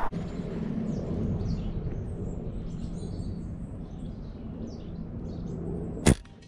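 Birds chirping over a low background hum, then about six seconds in a single sharp shot from a Brocock BRK Ghost pre-charged pneumatic bullpup air rifle.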